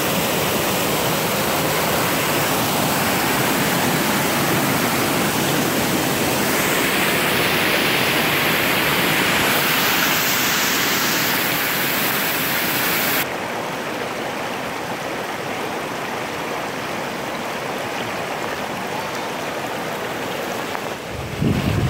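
Steady rush of water running over rocks in a shallow, rocky stream. About two-thirds through it drops suddenly to a quieter rush, and near the end wind buffets the microphone with a low rumble.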